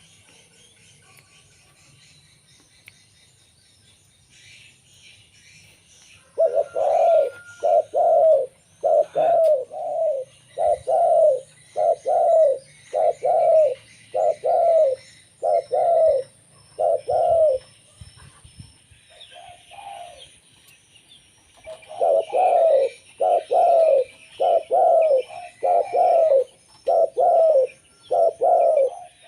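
Zebra dove (perkutut) cooing: short, rolling coos at about one a second, in a run starting about six seconds in, then after a pause a second run near the end. Faint twittering of small birds can be heard behind.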